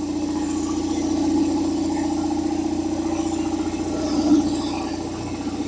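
Belt-driven piston air compressor running steadily as it builds tank pressure: a steady hum with a fast, even pulsing, and one brief louder blip about four seconds in. Its belt is one the owner thinks could be a little tighter.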